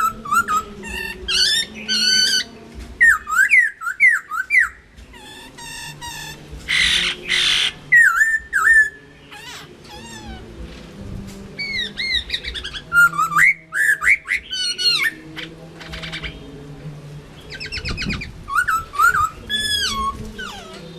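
Chinese hwamei singing: loud, varied phrases of quick sliding whistled notes, repeated in bursts, with a harsh rasping note about seven seconds in.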